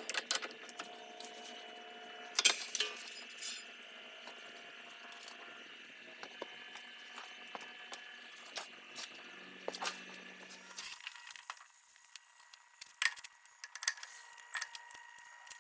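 Scattered small metallic clicks and taps from hand work on a rear disc-brake caliper and its hardware, the sharpest click about two and a half seconds in. Near the end come a few more knocks as the road wheel is set back onto the hub.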